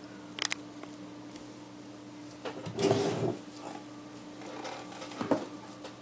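Modular power supply cables being unplugged and handled: a sharp click about half a second in, a louder scraping rustle around three seconds, and another knock just after five seconds, over a faint steady hum.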